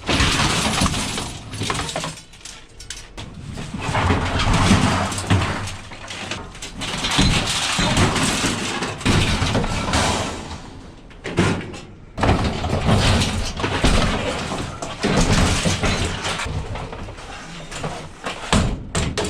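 Light scrap iron clattering and crashing as it is thrown or tipped down, in repeated loud bursts of a second or two with short pauses between.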